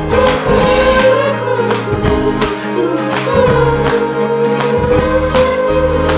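Background pop song: a singer holds long notes over guitar and a steady drum beat.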